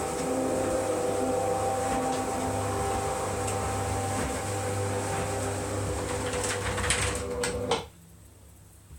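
Automatic insulated roller garage door running on its motor with a steady hum, the slats rattling a few times near the end before the motor stops abruptly about eight seconds in as the door reaches the end of its travel.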